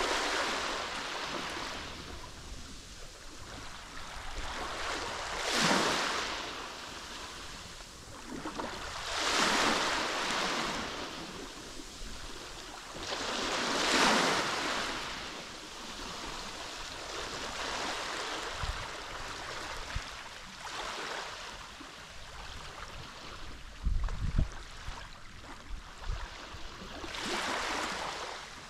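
Mediterranean sea waves breaking and washing onto the shore, a wave swelling and fading every four to five seconds over a steady wash. A few short low thumps come about three quarters of the way through.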